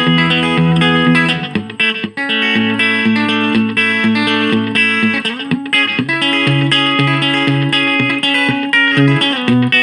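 Electric guitar chords played through a Watkins Copicat Mk1 tape echo set to short slapback echo, the chords struck repeatedly and changing twice.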